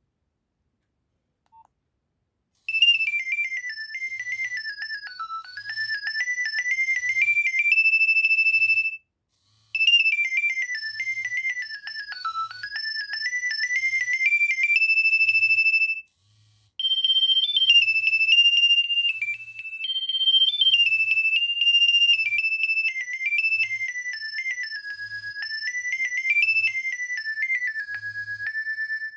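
Nokia 2300 mobile phone playing one of its built-in ringtones: a high, bright electronic melody over a soft, regular low beat, starting about three seconds in. The opening phrase plays twice, and after a brief break a second phrase follows.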